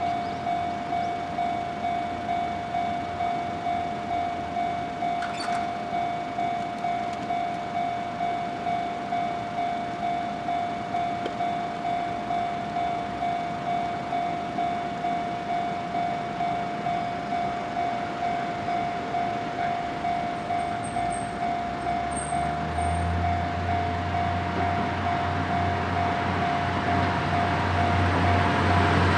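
Japanese level-crossing warning bell ringing, an electronic 'kan-kan' tone struck about one and a half times a second while the crossing is closed. About three quarters of the way in, the low drone of an approaching KiHa 48 diesel railcar's engine joins it and grows louder.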